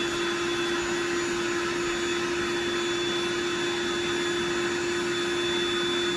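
Built-in electric pump of an Intex air mattress running steadily, inflating the mattress: one constant hum over a steady airy whir.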